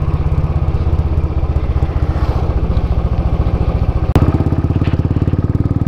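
Motorcycle engine running at a steady beat under way, heard from on the bike. There is a sharp click about four seconds in.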